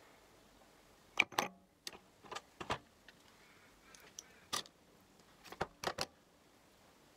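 Scattered clicks and taps of makeup palettes and brushes being handled: about eight short, sharp ticks spread over several seconds, some in quick pairs.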